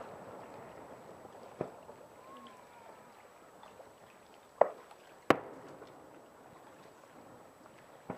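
Distant fireworks shells bursting over water: a soft bang about a second and a half in, two loud bangs less than a second apart near the middle, the first with a short echoing tail, and another bang near the end.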